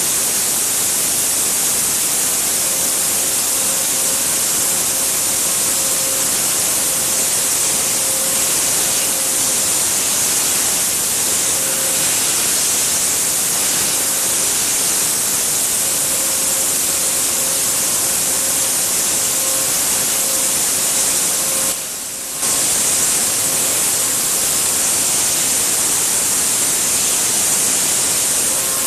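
CNC high-speed milling of NAK80 mould steel with a 1.5 mm ball-nose end mill at 16,000 rpm during rough cutting. A loud, steady hiss from the air nozzles blowing on the cutter sits over a faint mid-pitched tone that comes and goes as the cutter engages. The hiss briefly drops out about three quarters of the way through.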